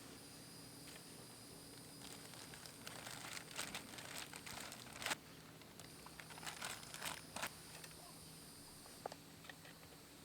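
Faint rustling and crinkling in two short bouts, like something being handled or crumpled, over a low steady hum.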